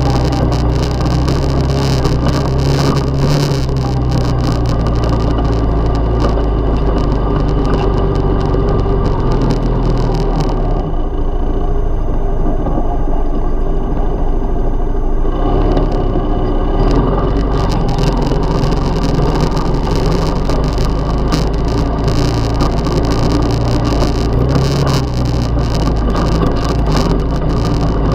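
ATV engine running steadily under way on a rough dirt trail, with constant knocking and rattling as it jolts over the ground. The rattling drops away for a few seconds near the middle, leaving mainly the engine hum.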